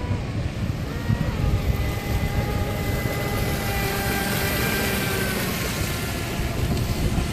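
Electric RC speedboat's brushless motor and propeller giving a steady high whine for about four seconds, dipping slightly in pitch as it starts, over low wind rumble on the microphone.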